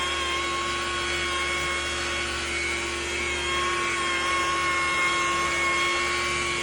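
Handheld electric power tool running at a steady speed, with a constant whine.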